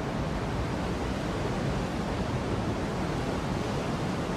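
Ocean surf: waves breaking on a shore, a steady rush of noise.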